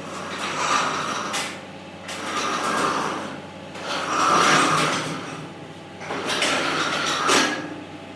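Repeated scraping strokes, each swelling and fading, about one every one to two seconds.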